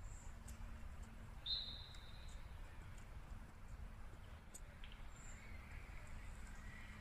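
Wind buffeting the microphone as a steady low rumble, with one short high whistle-like chirp about a second and a half in and a few faint ticks.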